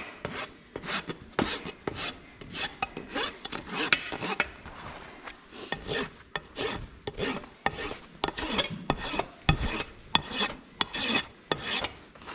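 A steel hoof rasp filed back and forth across the wall of a pony's front hoof in quick, rhythmic strokes, about two to three a second, bevelling the toe edge.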